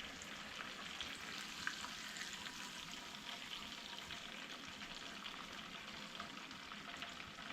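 Fish fillets frying in hot oil in a pan: a steady sizzle with fine crackling.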